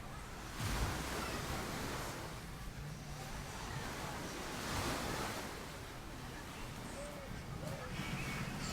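Ocean waves washing onto a beach. The surf noise swells about a second in and again about five seconds in.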